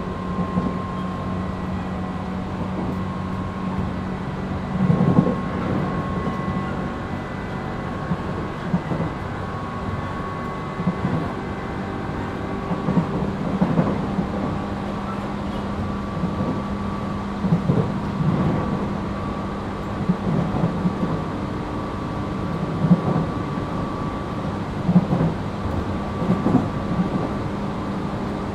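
Inside a Tobu 8000 series motor car running between stations. A steady hum and whine with a constant tone sits over running noise, broken by irregular knocks and thumps from the wheels on the track every few seconds.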